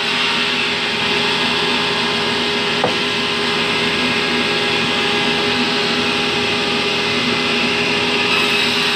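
Sawmill band saw running steadily and ripping a log of fibrous terap wood, a constant mechanical whine over a hum, with a brief tick about three seconds in.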